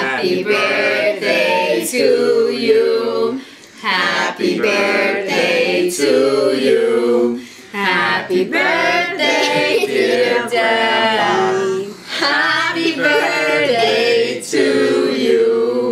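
A small group of voices, women's, men's and a child's, singing a birthday song together in phrases of held notes with short breaths between.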